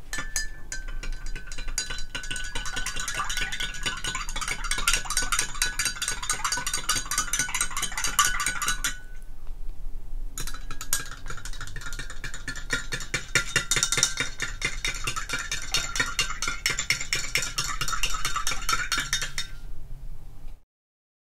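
A long metal spoon stirring milky green tea in a glass mug, clinking rapidly against the glass. One mug is stirred for about nine seconds, and after a short pause the second mug for about nine seconds more.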